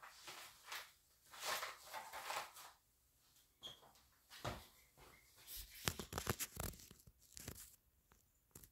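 Paper crinkling and rustling as contents are pulled out of a padded paper mailer, then a cluster of bumps and knocks from the camera being handled, several seconds in.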